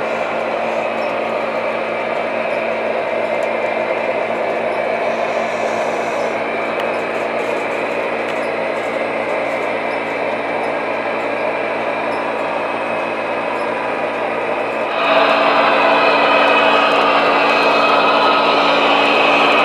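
Model trains running on a layout: a steady mechanical whir of small motors and wheels on track, with a low steady hum. About 15 seconds in it gets suddenly louder and brighter as a diesel locomotive model runs close by.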